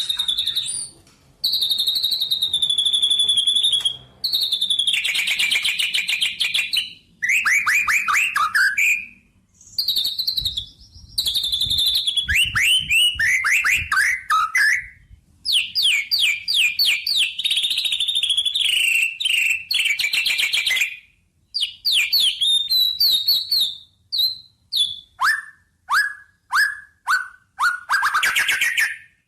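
Songbird singing close up in phrases of a few seconds with short pauses: fast trills and chatter at a high pitch, runs of quick downward-sweeping whistles, and a string of separate falling notes near the end.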